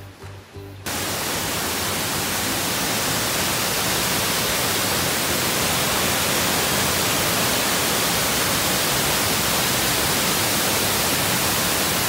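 Steady rushing noise of a waterfall falling into a pool. It cuts in suddenly about a second in and then holds even and loud.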